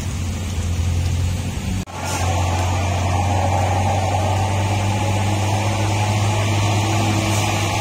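Road traffic on a steep hill, led by a heavy truck's engine running under load: a steady low engine drone over tyre noise. The sound cuts out for an instant just under two seconds in, then returns.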